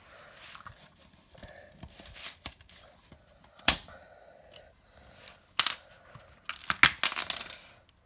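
Plastic LEGO bricks being pulled apart and handled: a sharp snap about three and a half seconds in, another near six seconds, then a quick run of clicks and rattling.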